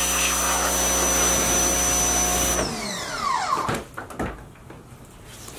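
Electric pressure washer running: a steady motor-and-pump whine under the hiss of the water spray. About two and a half seconds in it shuts off and the motor winds down with falling pitch.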